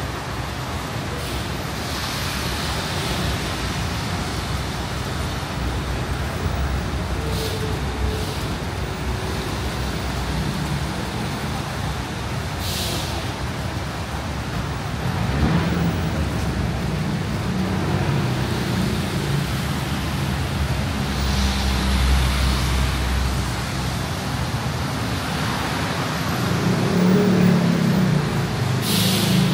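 Steady road traffic with vehicles passing, a few short sharp hisses like bus air brakes, and a heavier rumble swelling about halfway through and again near the end.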